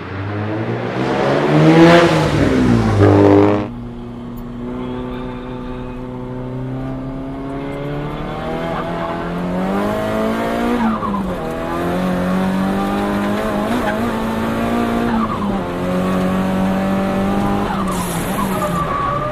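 Turbocharged engine of a Nissan Silvia S15 with an HKS GTIII turbo kit, revved hard to a peak about two seconds in, then breaking off abruptly. It then runs steadily under load, its pitch climbing slowly and dropping back at shifts about eleven and fifteen seconds in.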